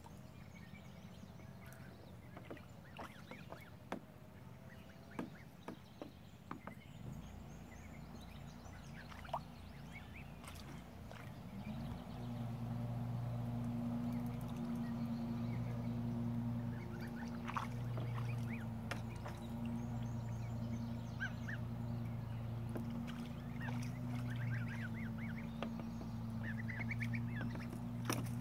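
Young white geese splashing and dabbling in a plastic paddling pool, with short goose calls. From about twelve seconds in, a steady low motor hum starts up and becomes the loudest sound.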